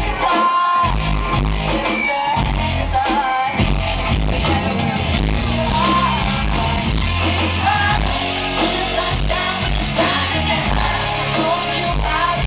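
Live pop song at concert volume: a woman's lead vocal over a loud band with a heavy bass beat, heard from within the audience.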